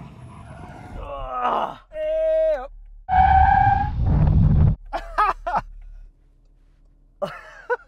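SUV tyres squealing under full emergency braking from 70 mph: a squeal rising in pitch about a second in, then a steady high squeal that drops away, then a louder, higher steady squeal with a low rumble under it, lasting about a second and a half.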